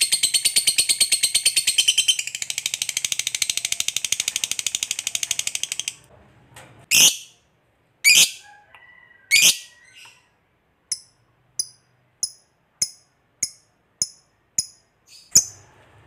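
Lovebird's long chattering trill ("ngekek panjang"): a fast run of shrill notes that stops about six seconds in. Then come three loud squawks, followed by short sharp chirps about every half second.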